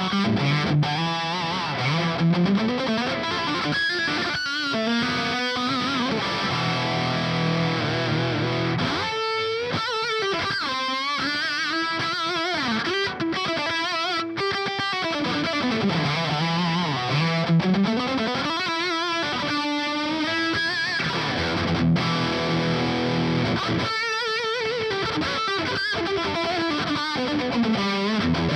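Distorted electric guitar riffing in standard tuning through a modified 50-watt, EL34-powered Marshall JCM 900 SL-X head and a miked 4x12 cabinet. It mixes chugging chords with lead lines whose held notes waver and slide in pitch.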